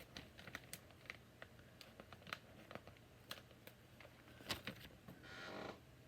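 Faint, scattered clicks and taps of Lego Technic plastic parts being handled and pressed together, the loudest about four and a half seconds in, followed shortly by a brief rustle.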